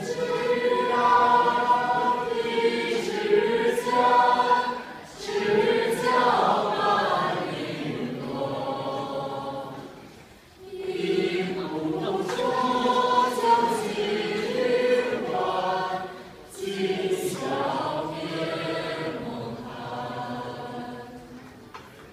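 A group of teenage students singing together as a choir, in sung phrases broken by three short pauses.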